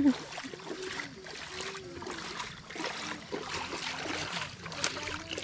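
Water splashing and trickling, with irregular small splashes.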